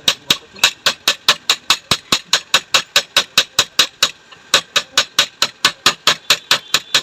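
Rapid, even hammer blows on metal, about five a second, each with a short metallic ring, with a brief pause about four seconds in.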